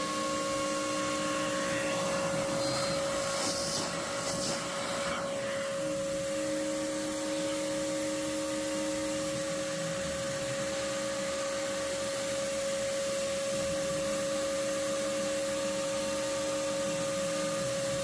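DIY CNC router machining, its spindle giving a steady whine over a constant rushing noise.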